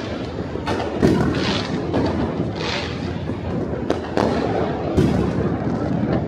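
Distant fireworks going off across the city: a continuous rumble of many bursts, with sharp bangs every second or so and a few short crackling hisses.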